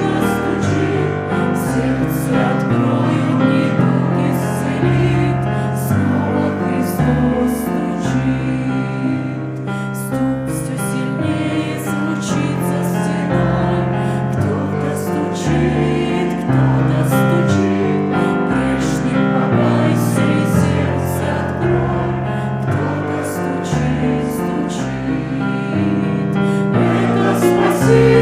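Choir singing a Christian hymn with instrumental accompaniment, the chords changing every second or so at a steady level.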